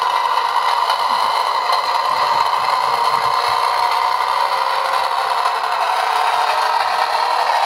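Recorded diesel engine sound of a Class 101 DMU played from a Bachmann model's sound decoder (Howes sound file) through its small onboard speaker. It runs steadily throughout, with little bass.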